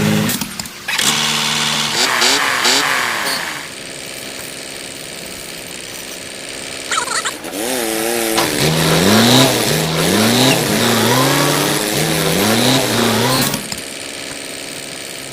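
Vehicle engine revving up and down in quick repeated surges, with a quieter, steadier running stretch in the middle.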